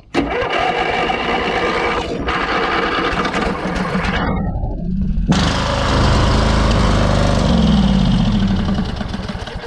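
Small engine of an old riding lawn tractor, its oil drained and fuel fed by hand, being started. It turns over and runs, winds down in steps about four seconds in, then turns over again and runs for about four seconds before dying out near the end.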